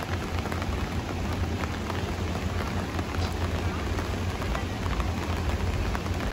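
Heavy rain falling steadily, a continuous hiss dotted with many sharp individual drop hits.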